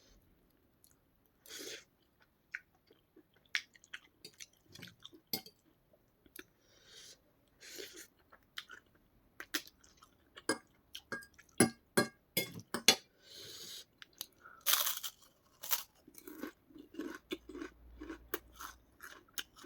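Close-up eating sounds: a person biting into and chewing crisp white papad, with many sharp, irregular crunches and cracks.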